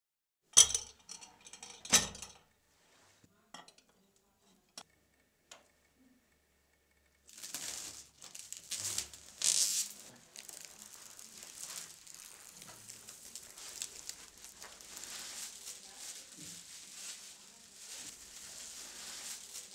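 A hand-held stretch-film dispenser being fitted with a film roll: two sharp knocks, then a few light clicks. From about seven seconds in, plastic stretch film crinkles and rustles steadily as it is unwound and handled.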